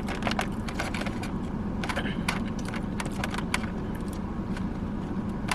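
Steady low hum inside a car with scattered short clicks and rustles, as of food and its wrapper being handled.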